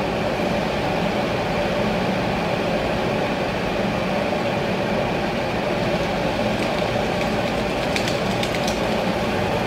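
Hot oil sizzling steadily in a pan as rosette cookie batter deep-fries on flower-shaped metal moulds, with a few light clicks near the end.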